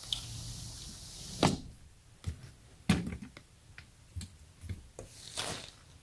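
Hands working on a sliding patio door's handle and latch hardware: scattered clicks and knocks, the two loudest about a second and a half in and about three seconds in, with a brief rustle near the end.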